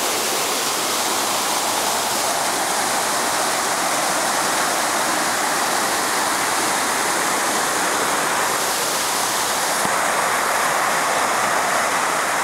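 Waterfall cascading, a loud steady rush of falling water.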